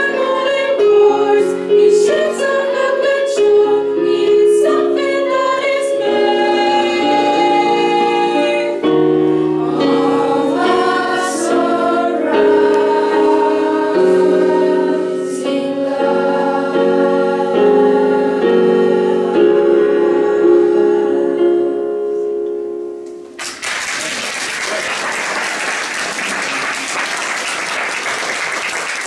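Youth choir singing a song with electronic keyboard accompaniment. About 23 seconds in, the song ends and the audience applauds.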